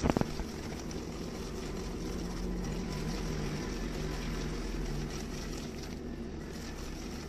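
A steady low hum, like a fan or motor running, under the faint soft scraping of a wire whisk stirring sugar and oil in a glass bowl.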